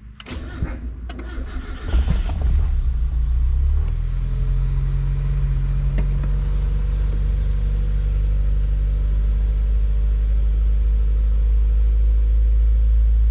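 Turbocharged Mazda MX-5 Miata's four-cylinder engine cranked by the starter for about two seconds, then catching and running a little higher for a couple of seconds before settling to a steady idle. Heard from inside the car's cabin.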